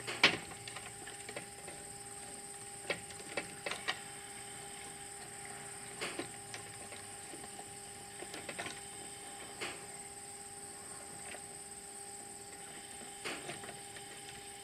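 Hand tool and stiff wires clicking and tapping against the breaker terminals and plastic housing of a solar combiner box as the wires are worked into place. The taps come irregularly, the sharpest about a quarter second in.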